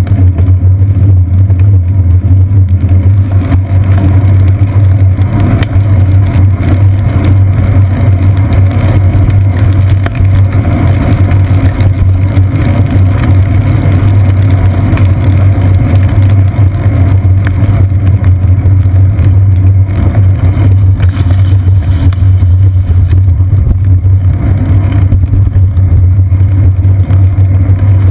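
Steady, loud rumble of a bicycle riding over wet city streets, picked up by a GoPro Hero 2 mounted on the seat post: wind and road vibration with a constant low hum, with city traffic around.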